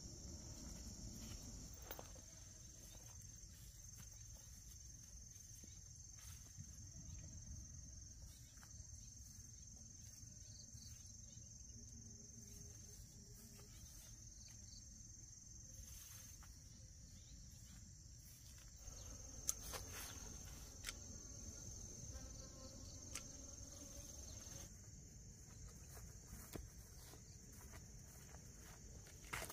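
Insects trilling faintly in one steady high-pitched note, in long stretches broken by short pauses. A few light clicks and knocks come through about twenty seconds in.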